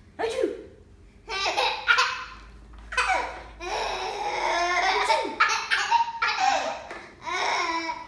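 A baby laughing hard in repeated bursts of belly laughter, set off by his older sister's sneezes; the longest run of laughing comes in the middle.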